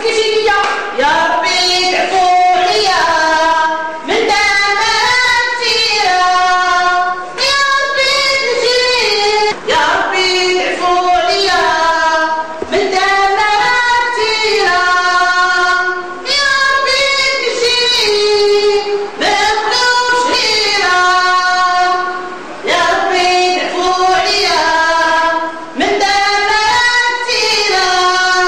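Female voices singing a song without instruments, in phrases of a few seconds with long held notes and short breaks between them.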